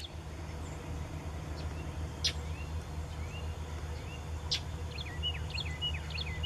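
Small songbirds calling: a few short rising chirps, then a quick run of stepped notes near the end, over a low steady rumble on the microphone. Two short knocks, about two seconds in and again halfway through.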